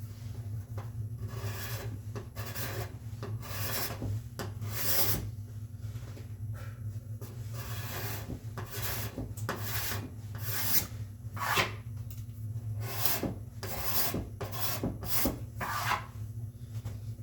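Steel card scraper pushed across a wood board in repeated scraping strokes, roughly one a second and irregular, shaving cured epoxy filler flush with the surface. A low steady hum runs underneath.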